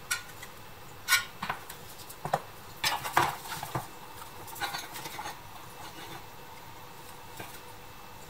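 Bare pressed-steel toy tractor parts clinking and tapping against each other as they are handled and fitted together: a run of light metallic clinks, the loudest about a second in and around three seconds in, with softer ones after.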